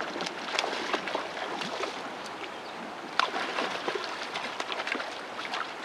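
Water lapping and splashing around a drift boat, with irregular sharp splashes and knocks, a strong one about three seconds in.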